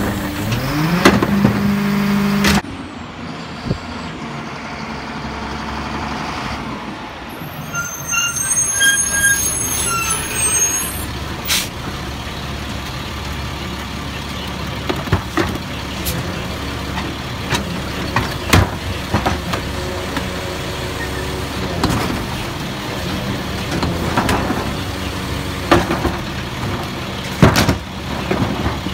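Split-body side-loader garbage truck's engine revving to drive the hydraulic cart tipper as it dumps a cart, with gliding tones that stop abruptly about two and a half seconds in. The engine then idles low, with a high hiss and short squeaks about eight seconds in, and sharp clunks and bangs of the tipper and carts as more carts are loaded.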